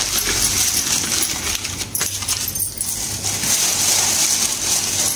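Newspaper wrapping and a plastic carry bag crinkling and rustling as they are handled and crumpled, with light jingling of glass bangles on the wrist.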